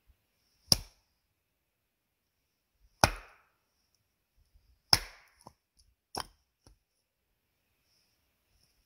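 Hatchet chopping into a dead cedar round to split a slab off it: four sharp blows, the first three loudest, one to two seconds apart.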